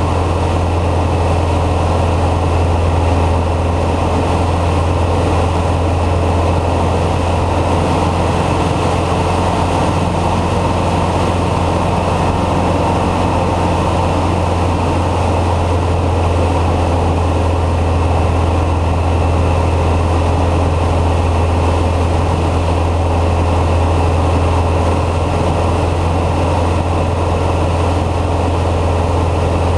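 Citabria 7ECA's 118 hp four-cylinder engine and propeller running steadily in flight: a constant, deep drone that holds the same pitch and loudness throughout.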